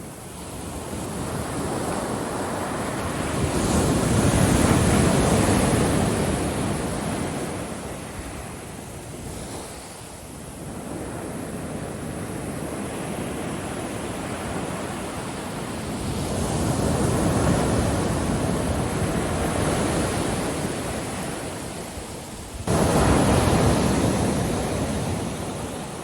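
Ocean waves breaking on a beach, surging and receding in slow swells: two long surges, then a third that comes in suddenly near the end and fades away.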